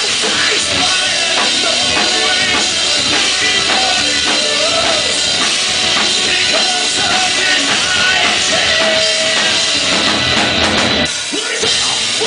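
Heavy metal band playing live: an instrumental stretch of drums and guitars with no singing, dipping briefly about eleven seconds in.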